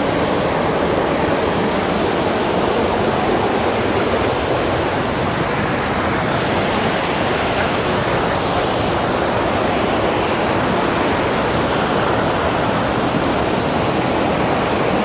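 Steady rush of a waterfall cascading over rocks on a jungle stream.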